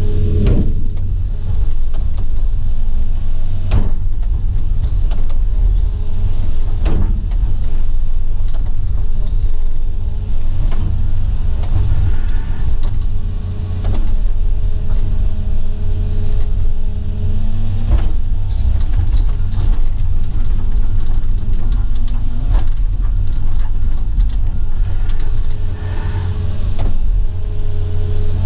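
Excavator's diesel engine running steadily under load, with a hydraulic whine that comes and goes as the machine works, and sharp knocks and clanks every few seconds.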